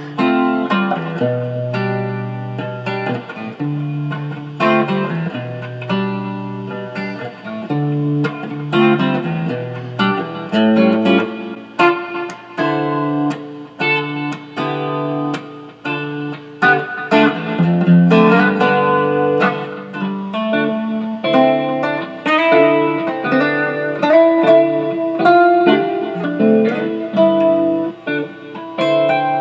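1965 Fender Mustang electric guitar, freshly re-fretted and set up, being play-tested: picked single notes and phrases over a looped chord progression on the same guitar.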